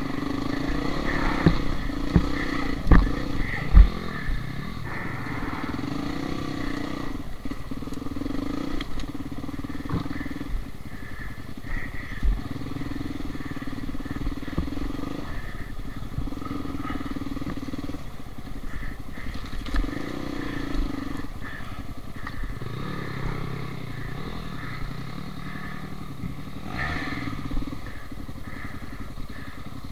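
Dirt bike engines worked on and off the throttle, the note swelling and dropping back every couple of seconds. A few sharp knocks in the first few seconds.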